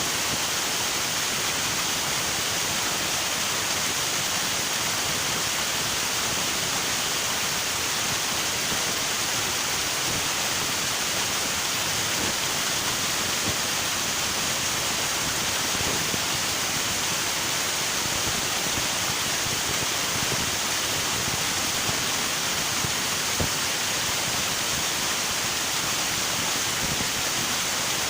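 River water rushing over rocks in a steady, unbroken wash, with no change in level.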